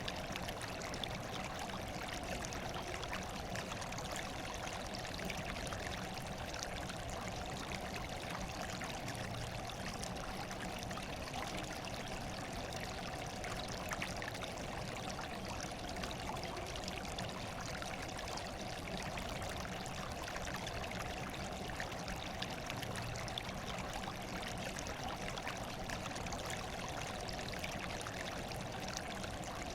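Steady running water, trickling and splashing without a break.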